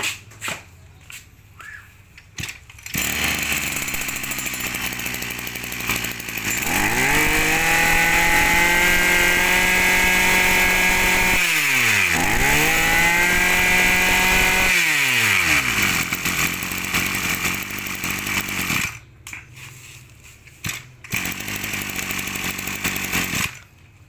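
Small 26cc two-stroke brush cutter engine starting and idling, then revved to full throttle twice, its pitch climbing and holding high with a brief drop between. It falls back to idle and cuts off.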